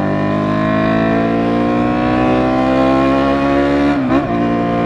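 Yamaha FZ6's inline-four engine accelerating hard, its pitch climbing steadily through one gear, with a brief drop at a gear change about four seconds in. The rider calls the bike's sound an ugly, strange noise that has come back.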